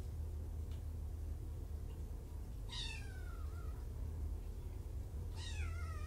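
A cat meowing twice, each call falling in pitch, over a steady low hum.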